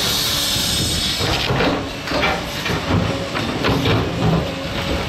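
Heavy earthmoving machinery at work: a diesel engine running with a hiss, then a rapid string of metallic knocks and clanks from about a second and a half in.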